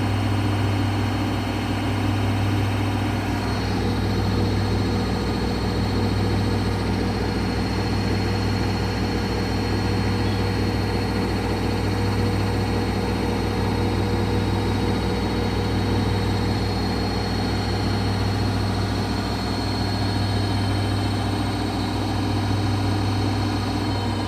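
Daewoo DWD-FT1013 washing machine spinning, a steady loud motor hum and whine with a strong low drone.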